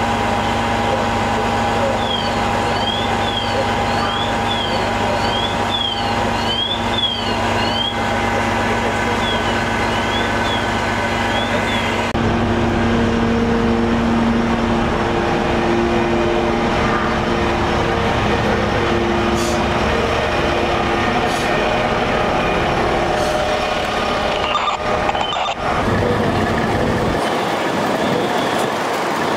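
Fire apparatus diesel engines running steadily, with a constant mechanical hum. During roughly the first half a high electronic chirping repeats about twice a second.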